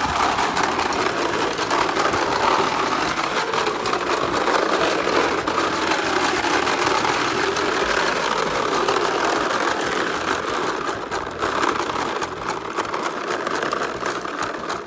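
Little Tikes toy lawn mower's engine sound: a steady motor-like buzz with a fast rattle of clicks, as the toy is pushed and its plastic wheels roll over concrete. It cuts off near the end.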